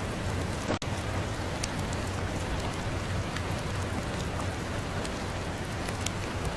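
Steady rain falling, an even hiss with scattered light ticks of drops. Just under a second in, the sound drops out for a split second.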